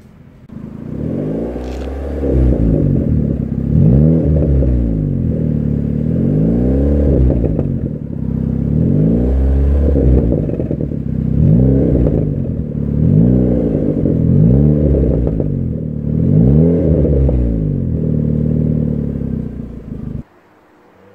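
Opel Corsa C GSi's 1.8-litre 16-valve four-cylinder engine revved up and down over and over, about one rise and fall every two seconds. The sound stops suddenly near the end.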